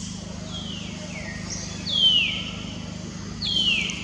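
Four short, high animal calls, each sliding down in pitch, over a steady low hum; the third call, about halfway through, is the loudest.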